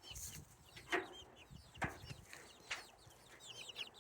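Chickens clucking quietly, with many short, high chirping calls and three sharper clucks or pecks about a second apart.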